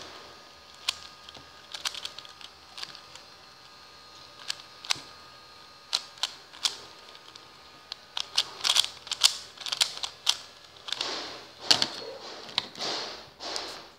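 Rubik's cube being turned by hand, its plastic layers clicking as they snap round. Scattered single clicks at first, then quicker runs of turns about eight seconds in and again from about eleven seconds on.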